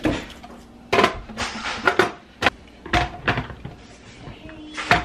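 Hard plastic knocks and clicks as a food processor's bowl and lid are handled and fitted onto the motor base: about seven sharp clacks spread unevenly over the few seconds.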